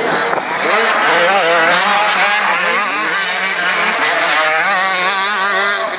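Several motocross bikes' engines revving hard on a dirt track, their pitch repeatedly rising and falling as riders open and close the throttle and change gear.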